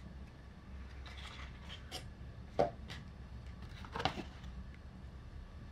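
Handling of a long wand box as a replica wand is taken out of it: light rubbing and scraping with a few small knocks, the sharpest about two and a half seconds in and another about four seconds in.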